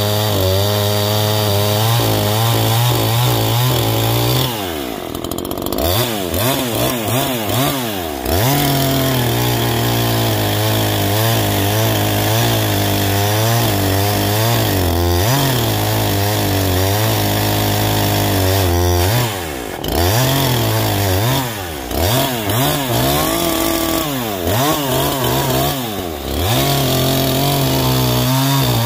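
Neo-Tec NH843 chainsaw, a two-stroke clone of the Husqvarna 543 XP, running at high revs as it cuts through logs. Several times its pitch drops and climbs back as the throttle is eased off between cuts and squeezed again.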